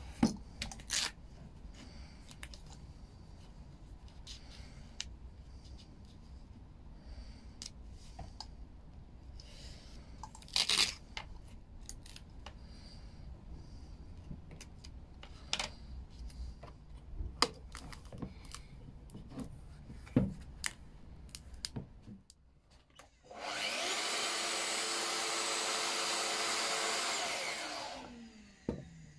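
Scattered light clicks and scrapes of a utility knife cutting a plastic filler spreader, then a Domino jointer's motor starts about 23 seconds in, runs steadily for about five seconds and winds down.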